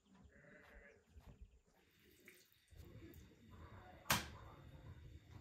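Quiet handling of food and serving plates on a table, with one sharp knock about four seconds in.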